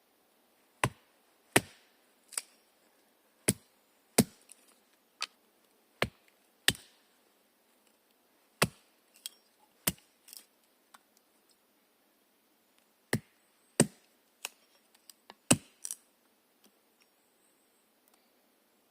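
Burning logs of a three-log taiga campfire popping in sharp single snaps, unevenly about once a second, with quiet gaps between and fewer snaps near the end.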